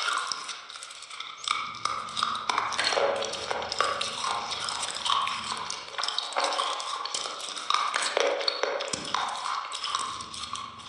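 Close-miked eating sounds: wet chewing, lip smacks and mouth clicks as soft jelly-and-cream dessert is bitten and chewed, an irregular run of many small clicks.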